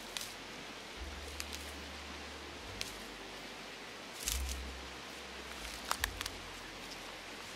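Dry dead fern fronds and grass rustling under a hand, with half a dozen short crisp snaps spread through, as ostrich fern fiddleheads are picked.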